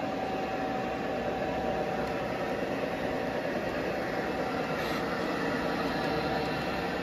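Model trains running on the layout track: a steady rumble and hum of wheels and motors.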